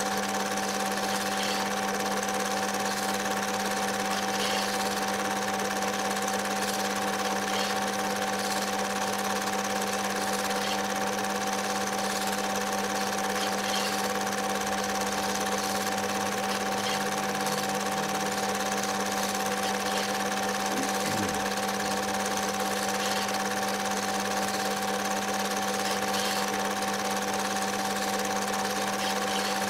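Film projector running steadily: a constant mechanical whirr with a steady hum.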